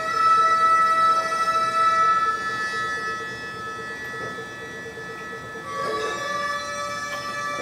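Gagaku ceremonial music: several long held wind-instrument tones sounding together, moving to a new chord about six seconds in.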